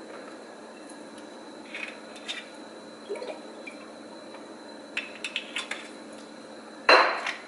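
Kitchen containers and dishes being handled: scattered light clicks and knocks, then a louder clatter near the end, over a steady low hum.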